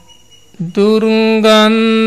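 A voice intoning Sinhala meditation instructions as a slow chant. After a short pause it comes in about half a second in, drawing each syllable out into a long, steady held note.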